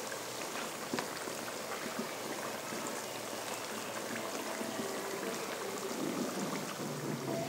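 Pastry-wrapped chicken box patties sizzling in hot oil in a frying pan: a steady, fine crackling hiss of deep-frying, with a light click about a second in.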